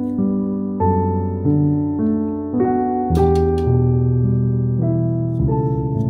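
Soft background piano music: a gentle melody of notes over sustained chords, changing about every half second to a second. A few faint clicks come about three seconds in.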